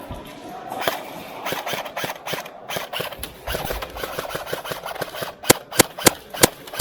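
Airsoft guns firing in a close-quarters game: scattered sharp cracks and snaps throughout, then a quick string of five louder shots near the end, about three a second.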